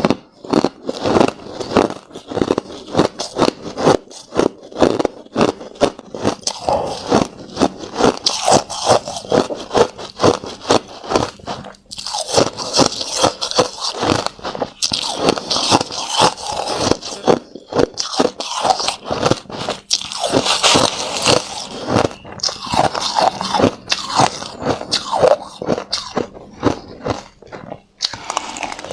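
A person biting and chewing crushed hard ice close to the microphone: a fast, continuous run of loud, sharp crunches, several a second, with brief pauses about twelve seconds in and near the end.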